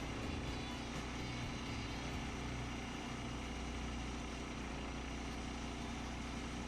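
Woodland Mills HM122 portable band sawmill with its gas engine running steadily.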